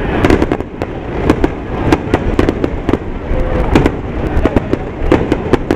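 Aerial firework shells bursting overhead in quick succession: a dense, irregular run of booms and sharp cracks, several a second, over a continuous low rumble.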